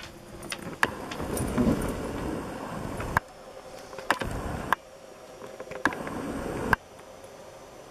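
Rustling and shuffling as a dog moves and noses among a pile of plush stuffed toys, with about six sharp clicks spread through it.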